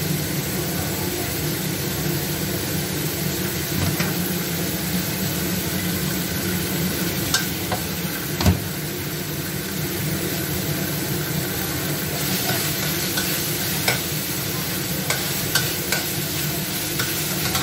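Ground pork sizzling steadily as it fries in a steel wok, with a metal spatula stirring it and knocking sharply against the pan a few times, hardest about halfway through and more often near the end.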